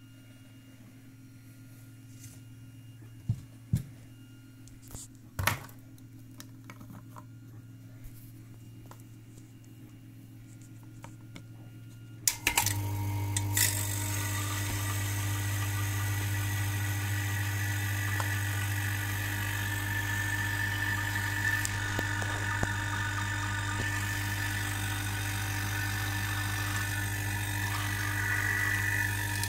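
A few light knocks, then about twelve seconds in a vacuum pump switches on and runs with a steady hum. It is pumping down the chamber holding a cup of hot coffee, which starts to boil off vapour under the falling pressure.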